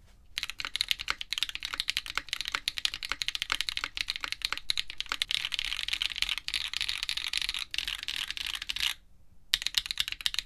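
Typing on a Keycult No. 2/65 mechanical keyboard with an aluminium plate, GMK keycaps and Zenclack Turbulence hyper-tactile switches: a fast, even stream of keystroke clacks. Typing stops for about half a second near the end, then resumes.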